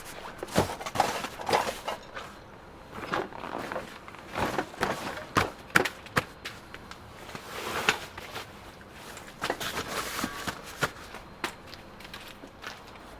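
A string of irregular knocks, clicks and rustles at uneven intervals, the sound of things being handled.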